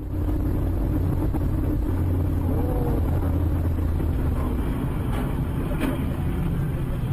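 Steady engine and road noise of a moving car, a low hum under a rushing haze, with two faint short clicks about five and six seconds in.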